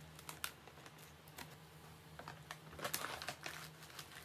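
Brown paper takeaway bag crinkling and rustling as hands rummage in it and lift out its contents, in scattered crackles that bunch up about three seconds in.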